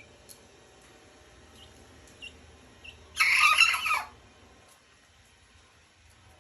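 Six-week-old Olive Egger cockerel attempting to crow: one short, hiccuping crow of just under a second, about three seconds in. It is the unfinished crow of a young rooster still learning. A few faint peeps come before it.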